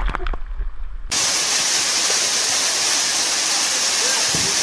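Wind rumbling on the microphone with a few knocks, then about a second in a steady rushing hiss of falling water takes over, as from a waterfall into a rocky pool.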